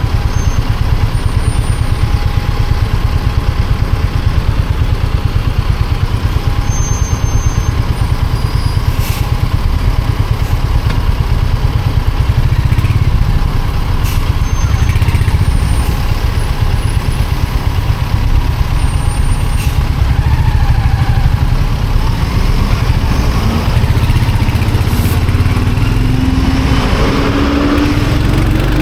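Royal Enfield Hunter 350's single-cylinder engine and exhaust thumping steadily while riding, with the pitch rising over the last few seconds as it speeds up.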